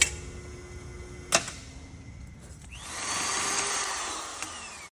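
Sheet-metal rotary machine with burring rolls: two sharp metallic clicks, then about two seconds of whirring grind with a faint falling tone that cuts off abruptly.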